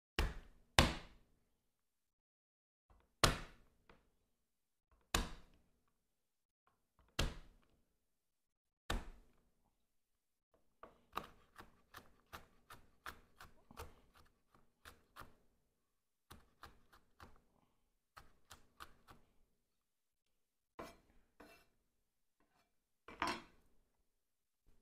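Chef's knife on a wooden cutting board smashing garlic cloves: six loud single whacks one to two seconds apart. Then fast, lighter chopping at about three cuts a second as the garlic is minced, and a couple of last knocks near the end.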